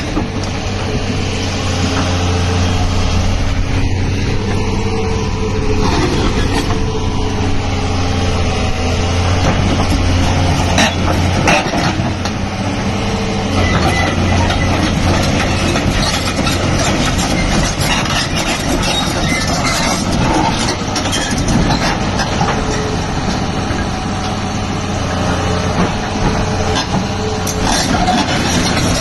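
Doosan DX225LCA hydraulic excavator's diesel engine running steadily with a deep, constant hum, with a few sharp knocks about a third of the way in and again near the end.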